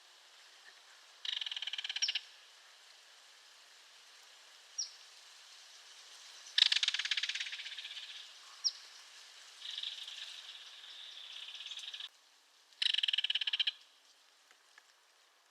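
Belted kingfisher giving its dry, rapid rattle call in several bursts: a short one about a second in, the longest and loudest about six and a half seconds in, then more near the end. A few short high chirps come between the rattles.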